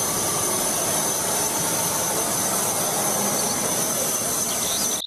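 A MAN concrete mixer truck driving by: its diesel engine and road noise make a steady, even rush with a thin high whine held throughout.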